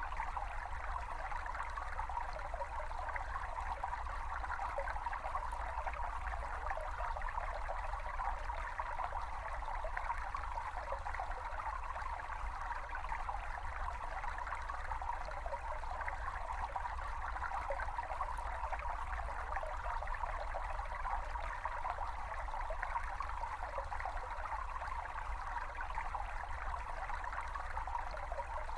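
A small brook babbling steadily over stones, a constant flickering rush of water with a low rumble underneath.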